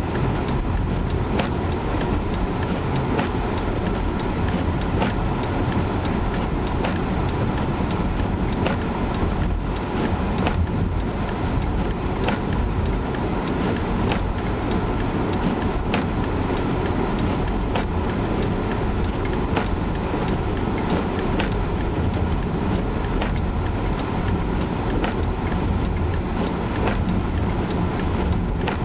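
Steady road and engine noise inside a moving car's cabin, with a light click repeating evenly about every second or two.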